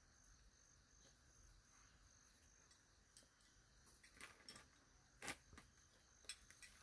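Faint, high, steady insect trill, like a cricket, fading about halfway through. In the second half come scattered light clicks and knocks, the sharpest about five seconds in.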